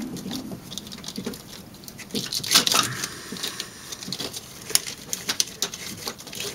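Spark plug wires and their plastic wire loom rustling and clicking as hands push the wires under the loom, irregular light clicks with a louder knock about two and a half seconds in.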